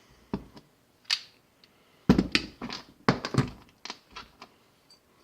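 Parts of a small weed eater engine being handled and set down on a hard surface during a teardown: a series of knocks and clicks, with heavier thunks about two and three seconds in.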